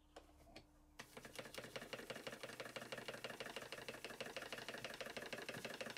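Stuart S50 model steam engine running on compressed air, starting about a second in with a faint, fast, even run of exhaust beats. Its cylinder has just been bolted tight to the bedplate, and it runs a little less freely for it.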